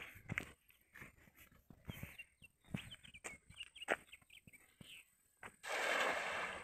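A few short knocks and rustles, then about five and a half seconds in a splashing hiss lasting about a second as a weighted cast net (atarraya) lands spread on the water.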